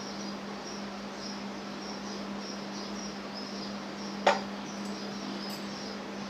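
Insect chirping, a high chirp repeating about twice a second, over a steady low hum. One sharp click about four seconds in.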